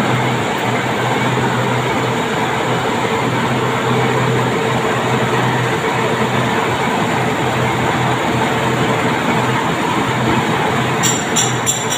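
Metal lathe running, its spindle spinning a stepped steel workpiece against the cutting tool with a steady rumble and hum. A quick cluster of sharp metallic ticks comes near the end.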